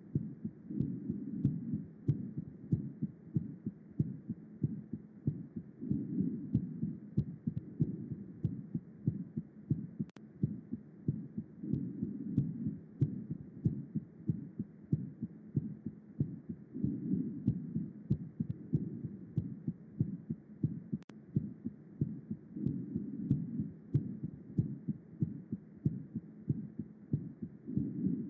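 Heart sounds as heard by auscultation: a steady run of low-pitched beats repeating without a break, swelling in loudness every five or six seconds.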